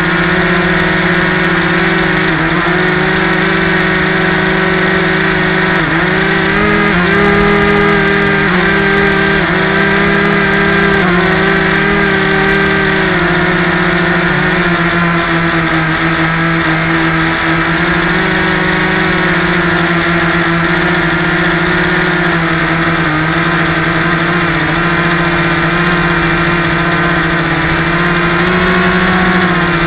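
Electric motor and propeller of a small rechargeable RC trainer airplane (Yellow Bee) running steadily in flight, picked up by a cheap camera taped to the plane's belly. A constant humming drone with a few brief dips and small rises in pitch as the throttle is eased and opened.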